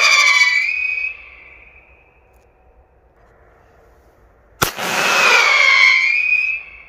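Umarex Ratterpatronen-SL 15mm pyrotechnic cartridges: the whistling effect of one cartridge wavers in pitch over a hiss and fades out about a second in. A second cartridge goes off with a sharp crack about four and a half seconds in, and its loud, wavering whistle runs for about two seconds before tailing off.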